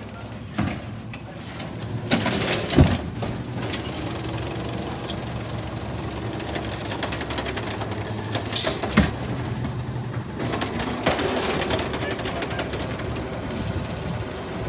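Natural-gas automated side-loader garbage truck running while its hydraulic arm grabs, lifts and tips a wheeled trash cart into the hopper. Loud clanks come as the cart is gripped and again about nine seconds in as it is shaken out, and a steady hydraulic whine follows as the arm lowers the cart back to the curb.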